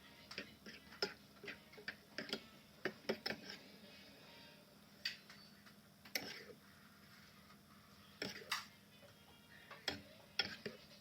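Eating sounds at a meal: irregular light clicks and taps, unevenly spaced.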